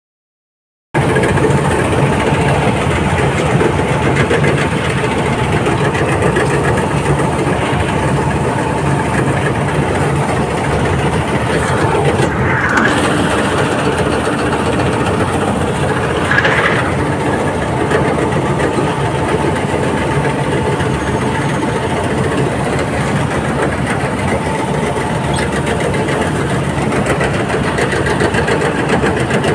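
Combine harvester running under load, heard from the operator's seat: steady engine and threshing-machinery noise as the header and reel cut lodged, flattened paddy. It starts suddenly about a second in, and two short higher-pitched sounds cut through it around the middle.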